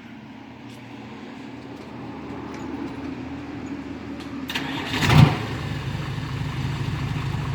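Car engine being started: a low hum builds, the engine catches with a short loud burst about five seconds in, then settles into a steady idle.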